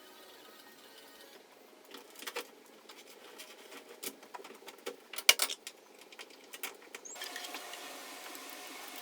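Scattered small clicks and taps of hand tools and hardware being handled, the loudest a little after five seconds in. A steady hiss comes in at about seven seconds.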